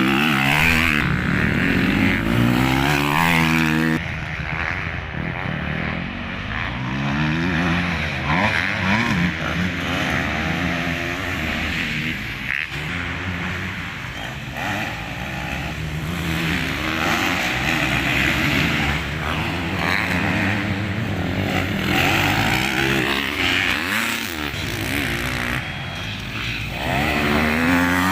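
Several motocross bike engines revving up and down, overlapping as the bikes ride around the dirt track and pass by.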